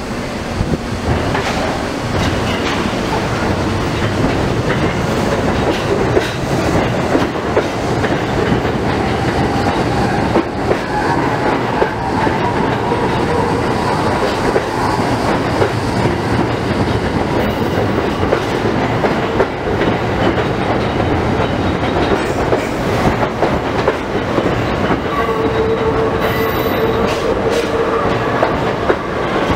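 New York City subway train running at low speed, its steel wheels clacking steadily over rail joints, with brief faint wheel squeals about a third of the way in and again near the end.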